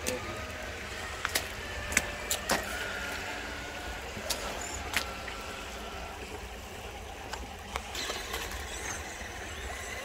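Electric motors of radio-controlled off-road crawlers whining as the trucks crawl, with a scatter of sharp clicks and knocks, most of them in the first half.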